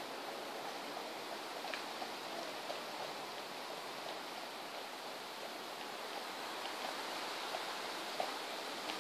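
Steady rushing outdoor background noise, with a few faint light ticks scattered through it.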